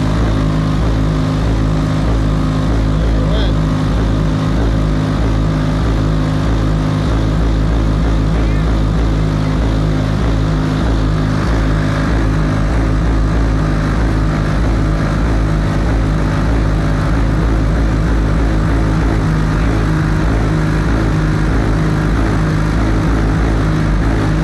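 Competition car-audio subwoofer system in a sedan playing bass at extreme volume during a timed SPL run, heard from outside the car as a steady drone of held low notes.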